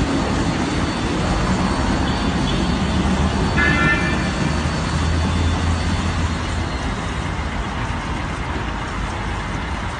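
Automatic car wash gantry running: its rotating brushes and drive motor make a loud, steady whirring noise over a constant low hum.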